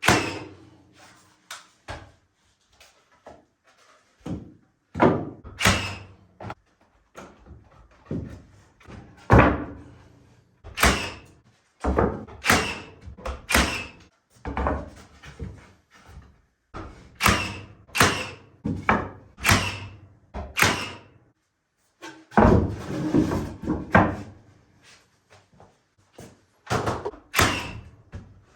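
Repeated heavy knocks and thuds at an irregular pace, some in quick pairs, each ringing briefly in the shop.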